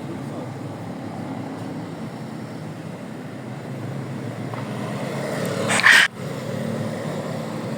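Steady low background rumble, with one short, loud burst of noise about six seconds in that cuts off sharply.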